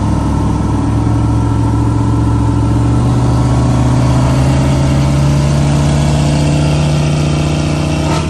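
High-horsepower truck engine pulling hard under load, its pitch climbing slowly and steadily through one long gear.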